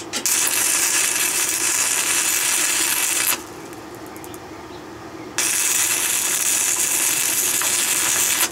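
Stick electrode arc welding on steel angle: the arc strikes with a brief crackle and burns with a steady sizzle for about three seconds, then stops. About two seconds later it strikes again and burns for another three seconds. A low steady hum runs underneath.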